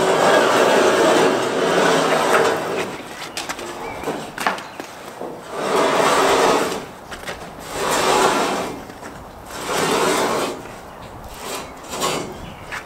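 Heavy steel ramp rails being dragged and levered over wet stone setts and tram track: long scrapes that come in swells every couple of seconds, with a few sharp metal knocks between them.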